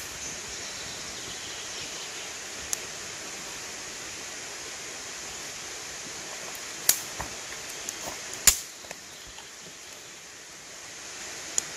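Steady rushing of flowing river water, with a few sharp clicks and knocks over it, the loudest about eight and a half seconds in.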